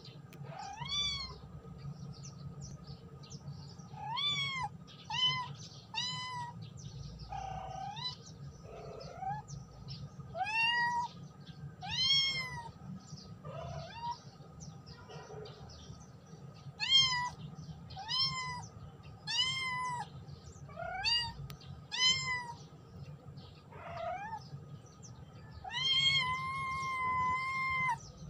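Orange kitten meowing over and over, short high-pitched calls roughly one a second, with one long drawn-out meow near the end. It is calling for a companion.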